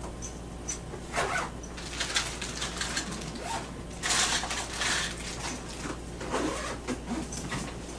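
Rustling and handling of plastic bags and luggage while packing, in irregular short bursts with a louder stretch about four seconds in.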